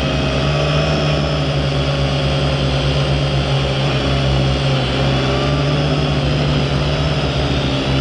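Quadcopter drone's electric motors and propellers running steadily, heard close up from the camera mounted on the drone: a loud, dense hum made of several pitches that drift slightly up and down as the drone hovers and moves.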